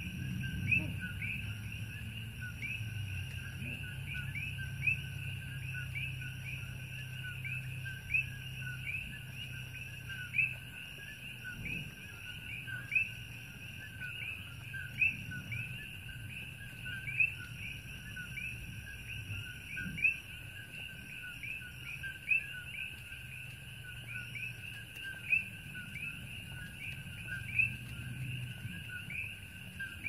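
Chorus of coqui frogs: many overlapping two-note chirps, with one nearer frog louder about every two seconds. A faint low hum runs underneath.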